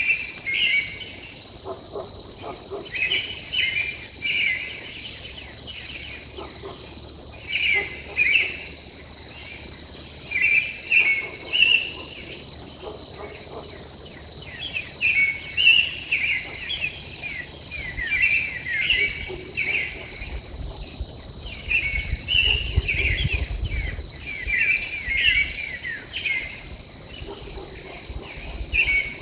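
An unidentified songbird singing short phrases of quick falling notes, over and over about every two seconds, over a steady high insect chorus.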